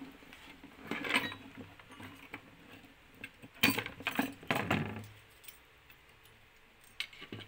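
Light clicks and rattles of a CPU cooler, with its metal heatsink and fan cable, being handled and set down onto a motherboard. They come in a few short bursts: about a second in, a cluster around four seconds, and one near the end.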